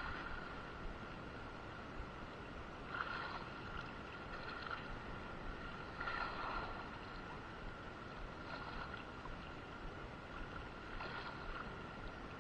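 Low sea ambience: steady wind-and-water noise with soft washes of water every two to three seconds, and a faint steady high whine underneath.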